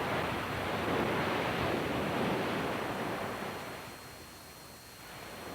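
Ocean surf washing in: a steady rush of breaking waves that eases off about four seconds in, then swells a little again.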